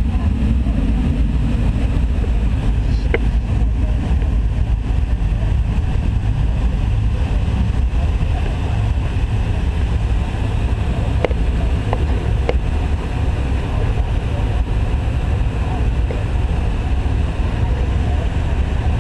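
Cabin noise of an MD-82 airliner taxiing: a steady low rumble from its rear-mounted Pratt & Whitney JT8D turbofans at low power, with a few faint clicks.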